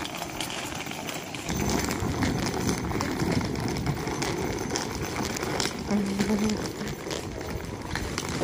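Footsteps of people walking, with voices in the background.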